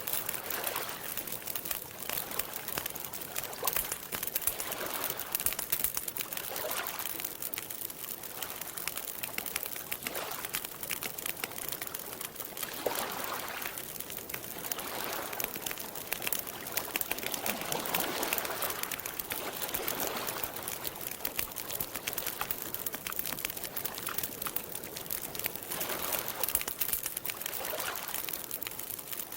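Wood campfire crackling, with frequent small irregular pops, over lake water lapping gently in soft swells every couple of seconds.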